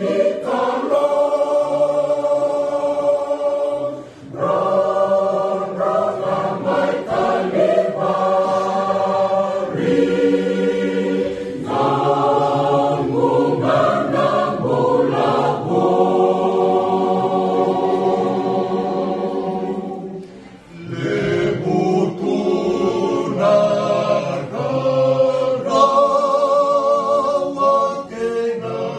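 Mixed choir of men's and women's voices singing unaccompanied in parts, on long held chords. There are brief breaks between phrases about 4 seconds in and again about 20 seconds in.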